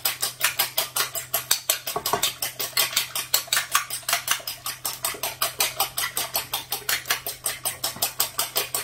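Eggs being beaten by hand in a bowl, the utensil clicking against the bowl in a fast, even rhythm of about six strokes a second.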